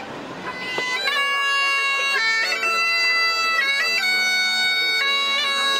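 Great Highland bagpipes start playing about a second in: a steady drone under a melody of shifting held notes.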